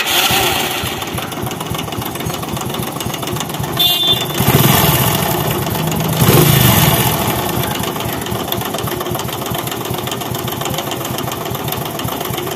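Hero motorcycle's small single-cylinder engine running with a lot of mechanical noise from the engine, and a couple of brief rises in revs around the middle. The timing chain is tight, so the mechanic traces the noise to the chain tensioner, which he suspects was fitted with the wrong spring.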